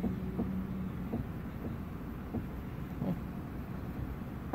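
Low steady rumble inside a pickup truck's cab, with a steady hum for about the first second and a few soft knocks at uneven spacing, the sharpest near the end.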